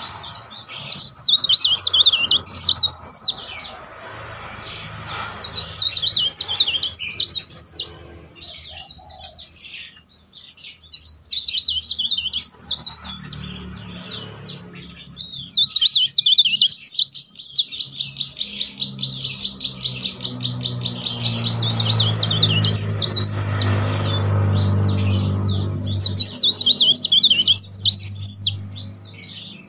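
Cikrak daun leaf warbler singing loud, shrill whistled phrases a few seconds long with short pauses between them, breaking into a fast rolling trill about two-thirds of the way through.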